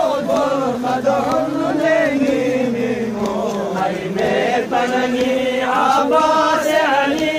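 Men chanting a Shia mourning lament (noha) together in a slow, sustained melody.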